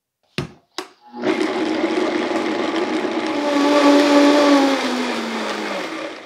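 Countertop blender running at speed, puréeing roasted carrot pieces with maple syrup. Two sharp knocks come just before it starts, about a second in; the motor's pitch climbs a little midway, then sinks as it winds down near the end.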